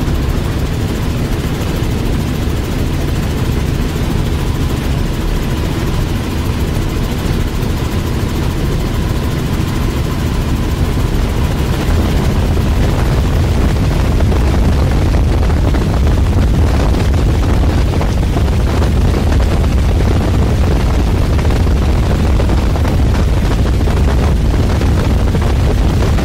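Light helicopter's engine and rotor noise heard from inside the cabin in flight: a loud, steady low rumble that grows a little louder about halfway through.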